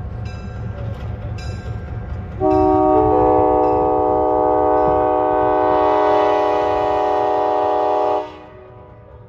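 Diesel locomotive's bell ringing in steady strokes over a low engine rumble, then a long chord blast on the air horn, about six seconds, starting about two and a half seconds in and cutting off near the end.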